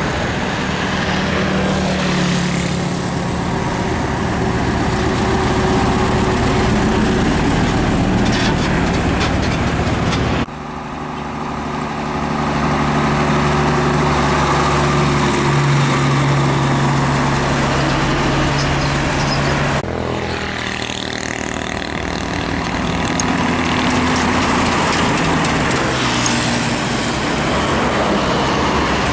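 Diesel engines of old heavy trucks running as they pass close by, first a Nissan Diesel UD and then a Hino, with steady engine drone and tyre and road noise. The sound changes abruptly twice as one passing truck gives way to the next.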